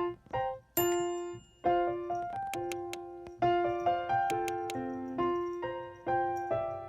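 Background music: a light, simple piano or electric-piano melody of separate notes, each struck and fading away.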